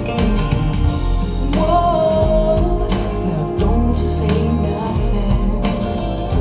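Rock song with drums, bass, guitar and singing, played back through Klipsch RP-600M bookshelf speakers.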